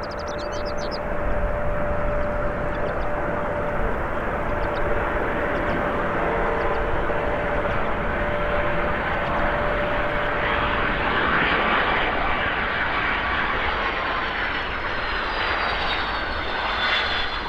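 Boeing 757-200 jet airliner on its landing arrival: a steady jet engine noise that swells into a louder hiss about ten seconds in, with a high whine falling in pitch near the end as it passes.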